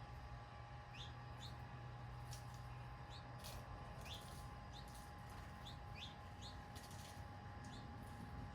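Birds chirping in short, quick rising notes, about a dozen scattered through, with a few sharp clicks, over a faint steady hum of garden background noise.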